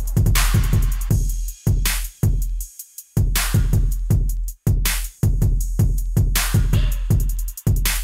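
Electronic background music with a heavy drum-machine beat and deep bass. It breaks off briefly about three seconds in.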